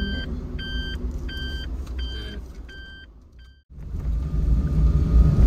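Vehicle reversing alarm beeping steadily, one beep about every three-quarters of a second, fading over the first three and a half seconds. Then an abrupt cut to the low rumble of a car driving.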